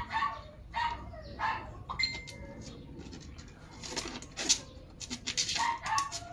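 Chickens clucking in a series of short calls, with a few short rustling or scraping noises about two thirds of the way through.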